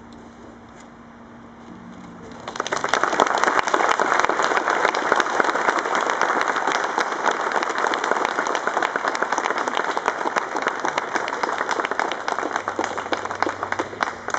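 Crowd applauding, breaking out suddenly about two and a half seconds in and going on as a steady, dense clapping.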